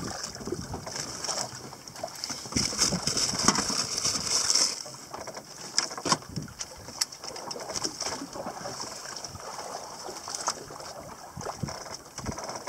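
Water slapping and splashing against the hull of a small outrigger boat, with uneven knocks and wind on the microphone; the hiss is strongest between about two and five seconds in.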